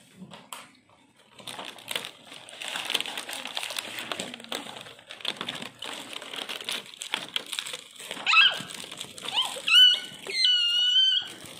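Plastic toy packaging crinkling, clicking and rattling as thin plastic trays of small dollhouse furniture pieces are handled. Near the end come two short, high-pitched squeaky tones, the loudest sounds.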